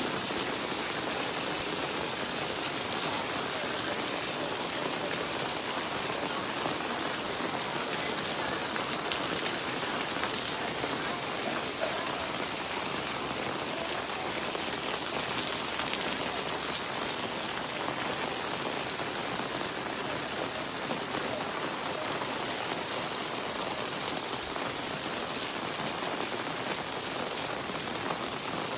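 Steady rainfall, drops pattering on surfaces close by.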